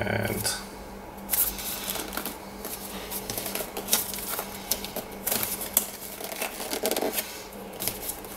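Small cardboard box handled and picked at by hand: irregular light clicks, scrapes and rustles as fingers work at its taped flaps.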